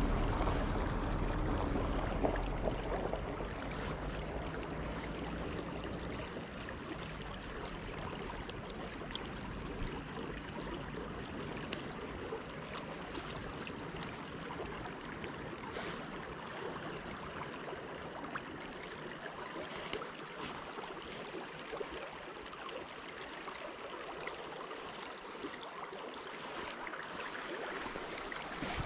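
Steady outdoor hiss of wind and flowing river water. Wind buffets the microphone with a low rumble for the first few seconds, then dies away.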